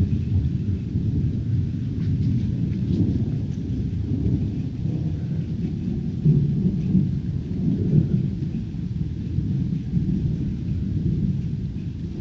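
Thunder rumbling on and on during a storm, swelling about halfway through, with a faint hiss of rain underneath.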